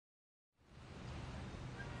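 Dead silence, then about half a second in a faint, steady room tone with a low hum fades in.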